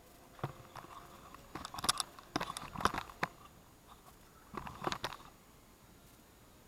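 A scattering of light knocks and clicks in three short clusters, then quiet shop room tone for the last second or so.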